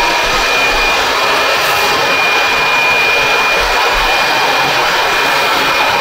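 Handheld electric blower running steadily at full speed with a high whine, blowing rinse water out of a ceiling-cassette air conditioner after its wash.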